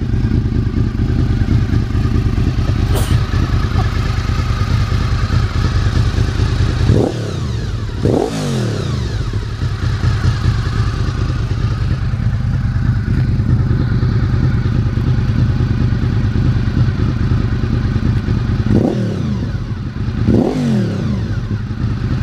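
1998 Honda VFR800's V4 engine idling through an aftermarket slip-on exhaust. The throttle is blipped twice about a third of the way in and twice more near the end, each rev rising sharply and dropping back to idle.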